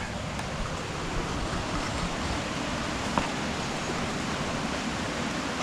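Steady rushing background noise with a single faint click about three seconds in.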